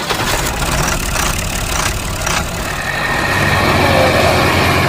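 Tractor engine running steadily with a low throbbing note, growing louder about three seconds in.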